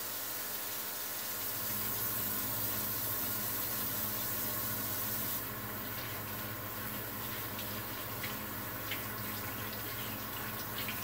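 Kitchen tap running into a sink, a steady rush of water that drops off about halfway through, followed by light clicks and knocks of things being handled, over a steady low hum.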